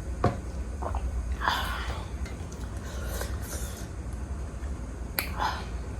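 Close-miked eating sounds of a person eating juicy pork momo: wet chewing and squishing, with a couple of sharp clicks, over a low steady hum.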